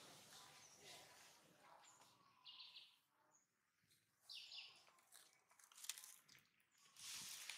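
Near silence: faint outdoor ambience with a few brief, faint high chirps.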